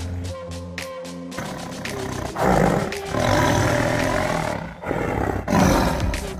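Tigers roaring in three rough bursts, about two and a half seconds in, a longer one from about three seconds, and another near the end, over background music with a steady bass line.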